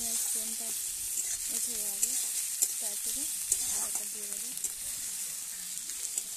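Sliced onions and dried red chillies frying in hot oil in a metal kadai: a steady sizzle as the onions brown, with the metal spatula scraping and clicking against the pan now and then as they are stirred.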